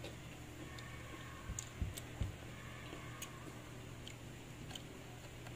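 Mouth sounds of a person chewing mango: a few scattered faint wet clicks and smacks, with a cluster of soft low thumps around two seconds in.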